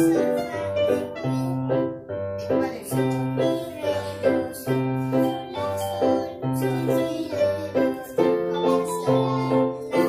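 A group of electronic keyboards playing a melody together in steady rhythm, with long low bass notes recurring underneath.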